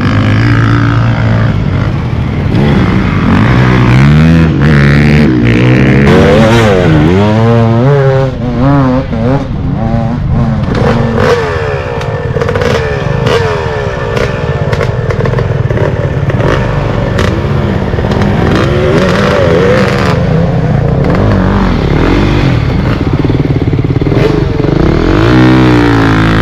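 Two-stroke enduro motorcycle engine revving up and down over and over as the bike is ridden hard on a rough track, with frequent clattering knocks from the bike.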